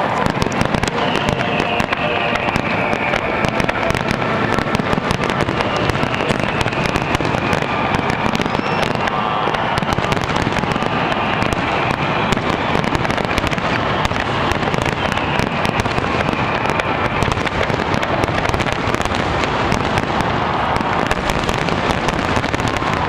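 Aerial fireworks going off in a dense, unbroken barrage of bangs and rapid crackling, with no pause.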